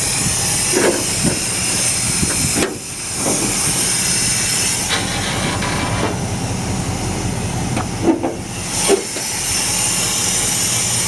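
Plymouth Suburban wagon's engine idling under a steady hiss, with two short pops at about eight and nine seconds in. The pops are its intermittent misfire, which the owner suspects comes from an intake manifold air leak.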